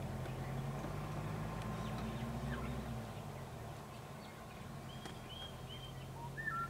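Vehicle engine running at idle with a steady low hum that fades away about three seconds in, followed by a few short bird chirps near the end.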